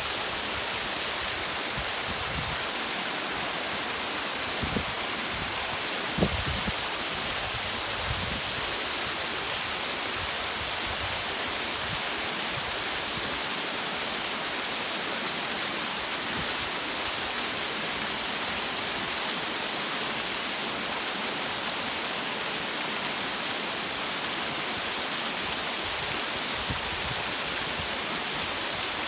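Small waterfall and river water rushing steadily, an even hiss with no break. A few brief low bumps come about five to eight seconds in.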